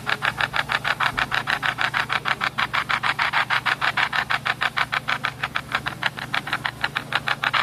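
Spirit-box (ghost box) sweep played through a phone: a rapid, even chopping of radio static and fragments, about six or seven pulses a second, over a steady low hum.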